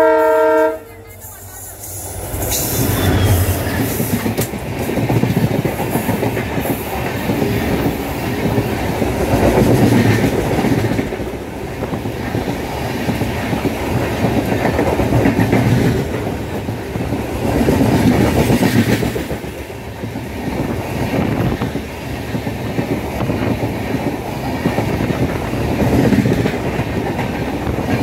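A locomotive horn sounds a short blast right at the start, and then a passenger express train runs past on the next track close by. Its coaches give a steady rumble and wheel clatter that swells and eases as they go by.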